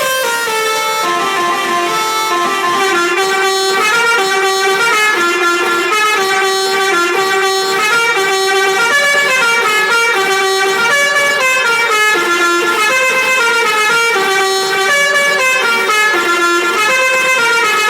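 Basuri telolet multi-tone musical vehicle horn playing a melody: steady horn notes stepping up and down in pitch without a break.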